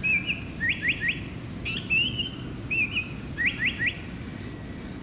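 Lanyu paradise flycatcher singing: two phrases, each a short warbling chatter followed by three quick rising whistles.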